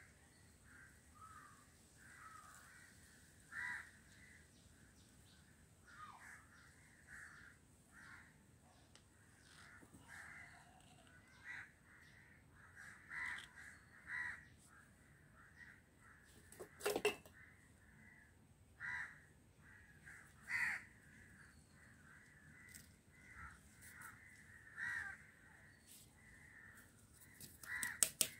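Short bird calls repeated at irregular intervals, with a sharp knock about seventeen seconds in.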